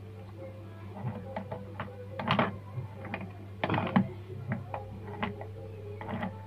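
Scattered clicks and knocks of hands handling the opened portable speaker's circuit panel and test lead, with two louder rattling knocks about two and four seconds in, over a steady low electrical hum from the powered-on speaker amplifier.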